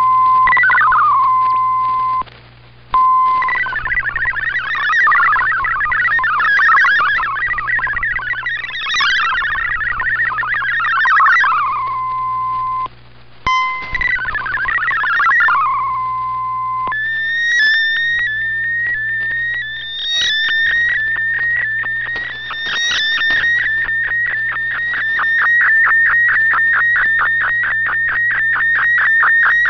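Shortwave MFSK64 digital data signal on 7780 kHz, received in AM on an Icom IC-R8600: fast warbling data tones, broken by a steady single tone and two brief dropouts. A little past halfway it changes to a rapid, even ticking warble, the MFSK picture transmission of an image being sent line by line.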